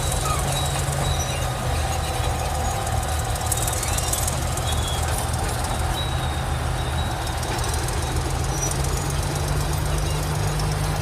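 Heavy diesel earth-moving machinery running steadily, with a few faint, short high squeaks.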